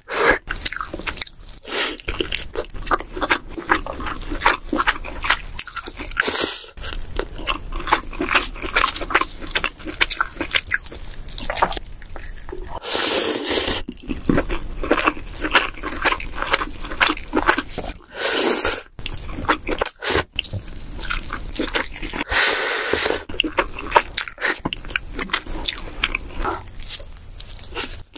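Close-miked chewing and biting of king crab meat, with many small wet mouth clicks and smacks and a few longer noisy bursts in the middle and later part.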